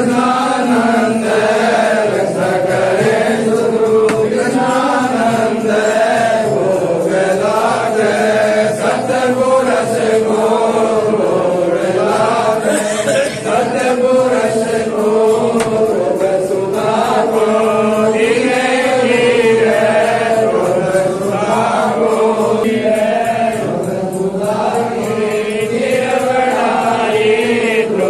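Devotional chanting: voices sing a slow melodic chant that rises and falls without a break.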